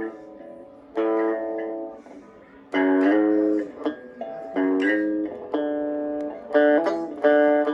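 Squier Cyclone electric guitar playing a slow series of chords, each struck and left to ring for about a second before the next.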